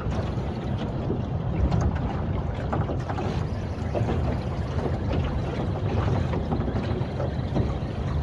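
Boat motor running steadily at trolling speed, with water splashing against the hull and wind on the microphone.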